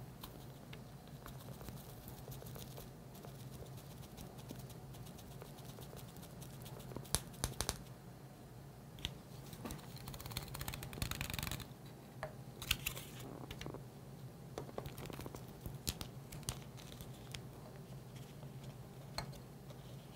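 A plastic bag crinkles and light clicks and taps come from glass as dried, ground switchgrass is poured into a glass flask. There is a longer rustling spell about ten seconds in.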